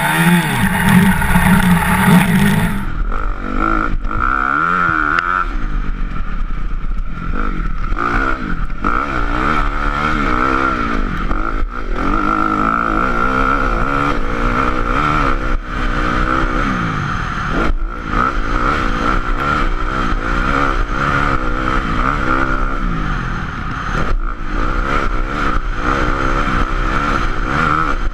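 Honda CRF motocross bike's single-cylinder four-stroke engine under hard riding, its pitch rising and falling again and again as the rider accelerates, shifts and backs off. The sound changes character about three seconds in.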